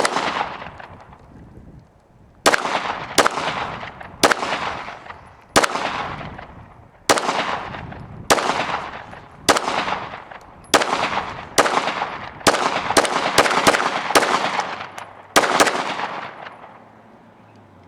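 Glock 9mm pistol fired about eighteen times at an uneven pace, the shots coming closer together in the second half, each crack followed by a long echo.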